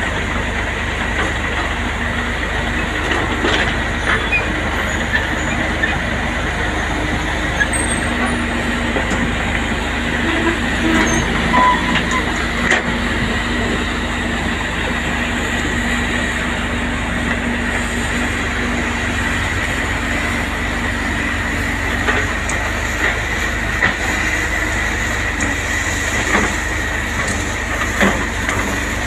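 Hydraulic crawler excavators working a pile of broken stone: diesel engines running steadily under load with a steady high whine, and occasional knocks of stone and bucket.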